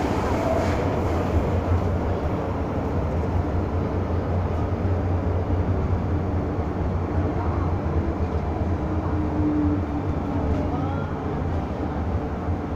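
Interior noise of an MTR M-Train car running between stations: a steady low rumble of wheels on the rails and running gear.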